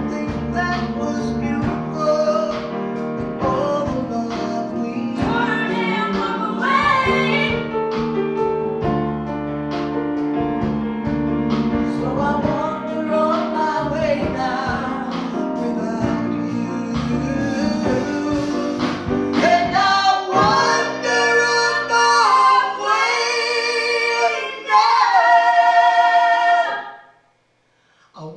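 Live band playing a slow song: piano, upright bass and drums under several singers' voices. About twenty seconds in, the bass and drums drop away and the voices hold long notes over the piano, then the sound cuts off abruptly near the end.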